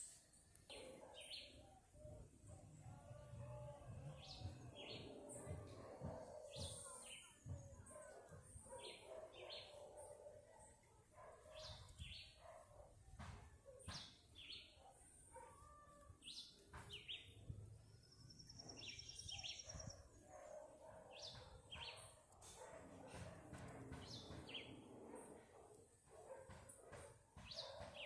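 Faint outdoor birdsong: several birds giving short, repeated high chirps, with one rapid trill partway through, over a soft low background murmur.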